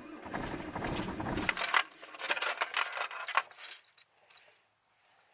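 A set of keys jangling and rattling for a few seconds as the ignition key is handled, after a short low rumble at the start; it dies away about four seconds in.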